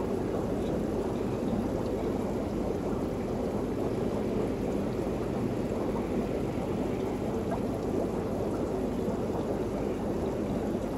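Steady rushing noise, like running or pouring water, with no distinct events.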